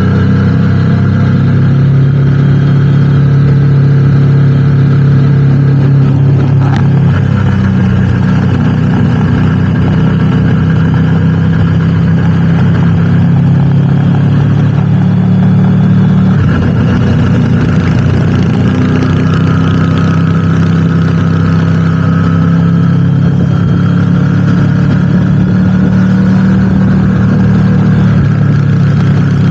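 Motorcycle engine running steadily while riding. Its pitch shifts slightly a couple of times as engine speed changes.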